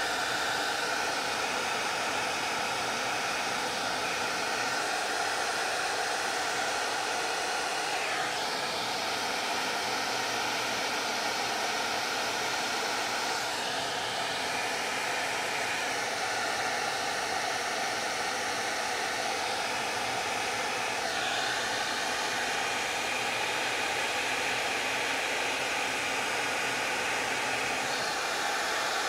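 Hot Tools hair dryer running steadily on high heat, blowing onto a canvas of melting crayon wax. The tone of the rushing air shifts a few times as the dryer is moved across the canvas.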